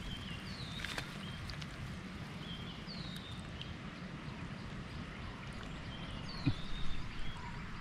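A bird calling three times, each call a quick falling whistle with short lower notes beside it, over a steady low rumble.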